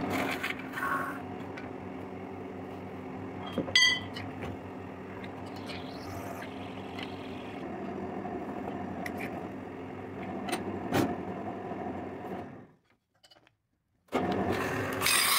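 A metal-spinning lathe runs with a steady hum while a wooden spinning tool presses a brass blank down over a wooden form. A few sharp ticks and knocks come at about 4 and 11 seconds. The sound cuts off about 13 seconds in and starts again just over a second later.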